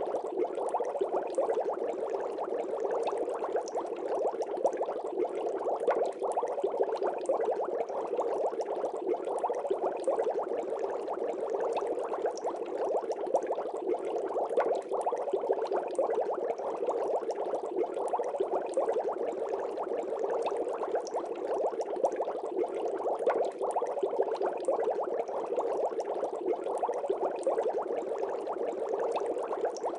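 Continuous aquarium water bubbling: a dense, fine crackle of bubbles that runs steadily without a break.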